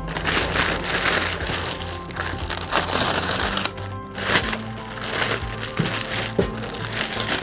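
Thin clear plastic bag rustling and crinkling as it is gathered and pulled off a printer, over steady background music.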